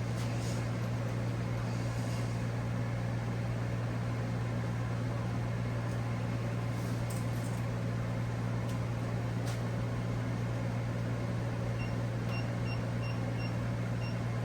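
1943 South Bend lathe running steadily with a constant low hum, with a few faint ticks. Near the end there is a short run of faint high pips.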